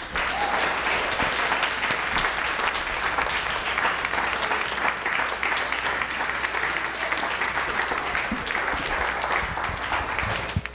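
Audience applauding: a dense, steady patter of many hands clapping, which falls away near the end.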